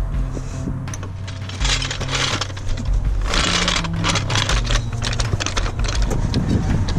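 Background music with a steady bass line, over repeated sharp metallic clicks and clinks from hand tools being worked on metal, with a couple of longer rattling stretches.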